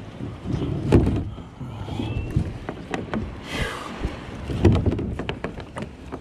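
Nylon strap and plastic buckle being handled and refastened on a plastic kayak hull: scattered clicks and knocks, with a heavier thump about a second in and another a little before the end, and a short hiss just past halfway.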